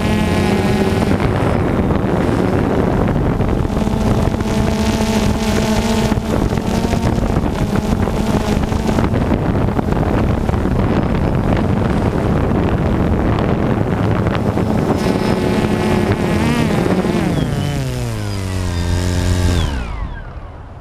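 DJI Phantom 2 quadcopter's motors and propellers running with a steady buzz, then falling in pitch over the last few seconds as the motors spin down and stop.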